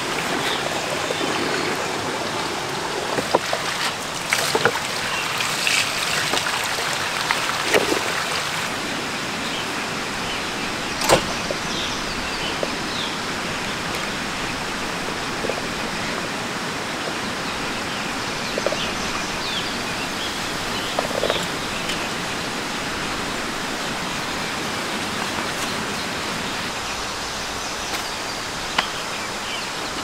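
Steady rush of running water, brighter for the first several seconds and then a little softer. Scattered knocks and clicks of camping gear being handled sound over it, the loudest a sharp knock about eleven seconds in.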